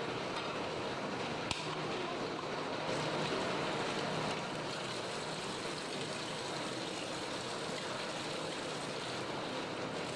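Water running steadily from a kitchen tap into a stainless steel sink as a small plastic lid is rinsed. A single sharp click about one and a half seconds in.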